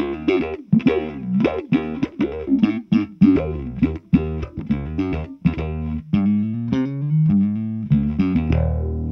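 Fender Precision Bass played through an Earthquaker Devices Spatial Delivery envelope filter into a Fender Bassman amp and 4x10 cabinet. Quick plucked notes each open with a rising wah sweep, a few per second, then give way about six seconds in to slower held notes, the last one ringing out near the end. The pedal's filter knob is turned by hand partway through.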